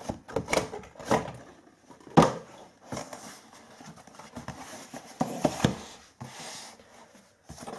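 Corrugated cardboard box being handled: a series of knocks and taps, the sharpest about two seconds in, with cardboard rubbing and scraping between.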